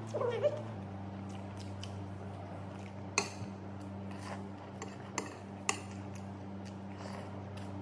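Eating sounds: a fork or spoon clicking sharply against a dish a handful of times while noodles are eaten, with paper food wrappers being handled, over a steady low hum.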